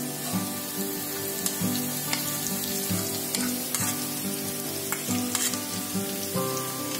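Chopped onions sizzling in oil on a hot iron tava, with a few light clicks of a steel spoon as ginger-garlic paste is spooned onto them. Soft background music with held notes runs underneath.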